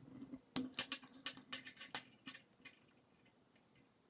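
Plastic K'NEX rods and connectors clicking and rattling as they are handled and snapped onto a model: a quick, irregular run of light clicks over the first two seconds or so.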